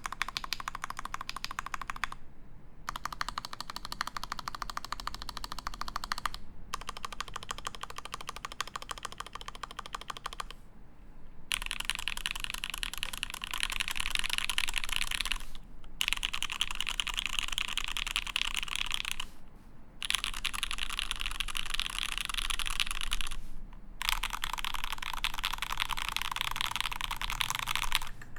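Fast typing on a custom mechanical keyboard with Mekanisk Ultramarine switches, an acrylic plate and GMK keycaps: a dense run of key clacks. It comes in several stretches with brief pauses, and the stretches from about a third of the way in are louder and brighter.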